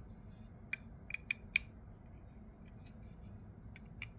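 Sharp, light metallic clicks from handling the freshly reassembled folding knife: four quick clicks about a second in, then a few fainter ones.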